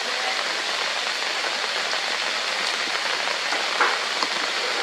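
Hard rain falling steadily on forest leaves, an even hiss, with one brief louder drop or tap about four seconds in.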